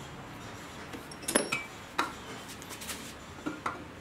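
Several sharp metallic clinks and knocks as the metal housing of a vintage National electric drill is handled and freed from a steel bench vise, the loudest cluster about a third of the way in with a brief high ring.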